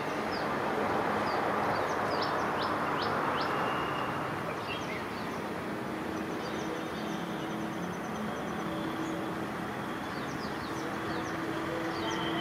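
Distant WDP4D diesel-electric locomotive working up a gradient under load: a steady engine drone with a low hum. Birds chirp with quick downward-sweeping notes over it, in a flurry about a second to three seconds in and again near the end.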